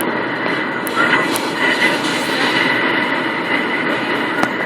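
Steady driving noise of a 1998 Dodge Durango under way on a snowy road.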